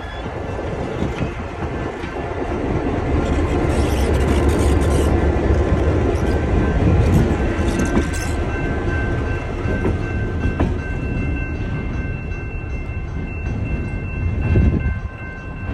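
Diesel-electric locomotive pulling a passenger train slowly past, its engine rumble and wheel clatter loudest about midway as the locomotive goes by. Thin steady high tones sound in the second half, and a brief low swell comes near the end.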